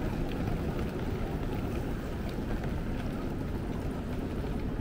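Outdoor city ambience: a steady low rumble with a few faint clicks.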